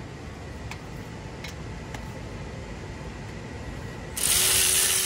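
Ratchet wrench clicking faintly on a front brake caliper bolt. About four seconds in, a loud, steady spray hiss starts and cuts off abruptly after under two seconds.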